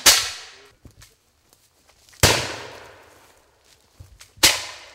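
Flintlock muskets firing black-powder charges among the trees: the fading tail of one shot at the start, then two more sharp shots about two seconds apart, each trailing off over about a second.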